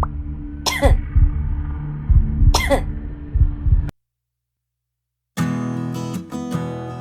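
Two short coughs about two seconds apart over background music with a steady beat. The music cuts off just after the middle; after a second and a half of silence, guitar music starts.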